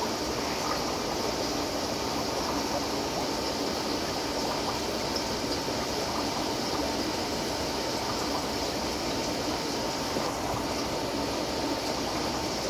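Steady trickle of running water in an aquarium setup, with a faint steady hum beneath it.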